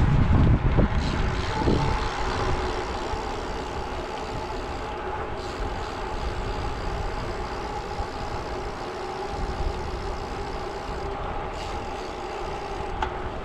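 Wind noise on the microphone of a moving bicycle, with tyres rolling on asphalt and a steady faint hum. The low wind buffeting is heaviest in the first two seconds, then settles to an even rush.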